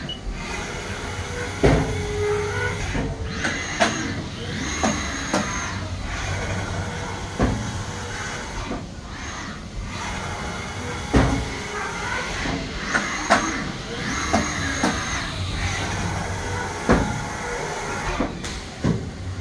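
Haas SL40T CNC lathe cycling through a program over a steady machine hum: sharp clunks as the tool turret moves and locks, and high whines as the axes rapid. The same sequence of clunks and whines repeats about every nine and a half seconds.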